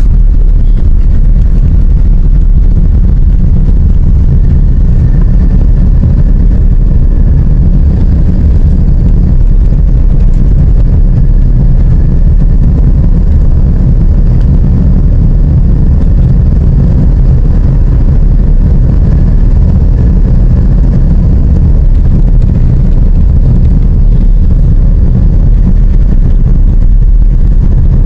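Steady, loud low rumble of wind buffeting the microphone.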